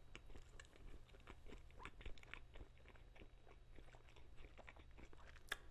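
Faint close-miked chewing of a bacon burger: soft wet mouth clicks scattered throughout, with one sharper click near the end.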